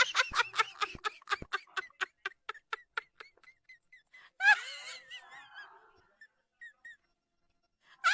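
Prank fart sound: a trail of short sputtering pops that slow down and fade over about three seconds. About four and a half seconds in comes a single wavering, honk-like squawk.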